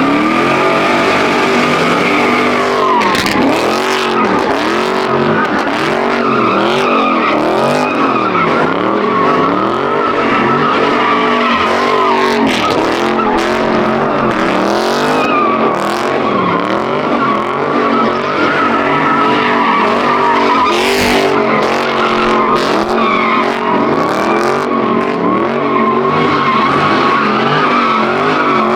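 Dodge 392 Scat Pack's 6.4-litre HEMI V8 spinning the tyres in donuts: a continuous tyre squeal, with the engine note rising and falling about once a second as the car circles.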